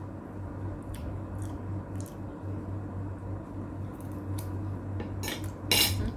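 Light clicks and taps of eating at a plate, scattered through, with a louder brief crackling rustle near the end. A steady low hum runs underneath.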